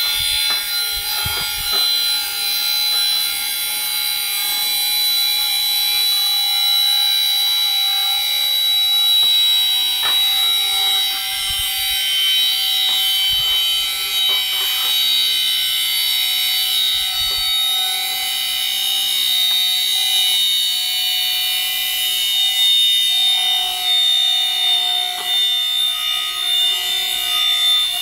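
Aircraft autopilot gyroscope's three-phase gyro rotor spinning at full speed after its 400 Hz supply has been disconnected, so it is coasting: a steady high-pitched whine made of several tones. A few soft knocks come from the housing being handled and turned.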